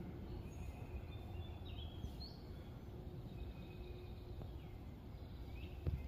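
Faint chirps and short sliding whistles of small songbirds over a low, steady background rumble, the calls thickest in the first half.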